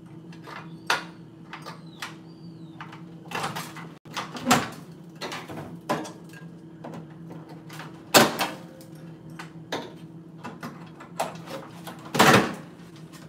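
Irregular clicks, knocks and rattles, with a louder rattle about twelve seconds in, over a steady low hum.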